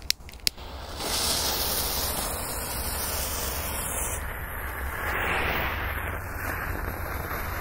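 A pyrotechnic smoke bomb catching with a couple of sharp clicks, then hissing steadily as it burns and pours out smoke from about a second in.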